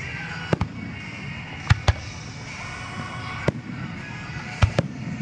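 Aerial fireworks bursting: about seven sharp bangs, some in quick pairs, with music playing underneath.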